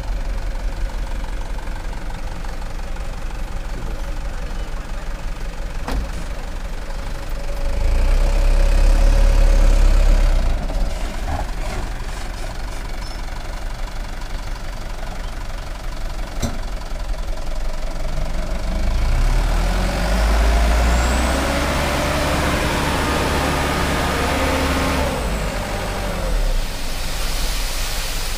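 Mitsubishi light dump truck's diesel engine running steadily, rising in revs for a few seconds about a third of the way in as the truck moves. Its revs rise again for several seconds near the end while the hydraulic hoist raises the loaded bed to tip the soil.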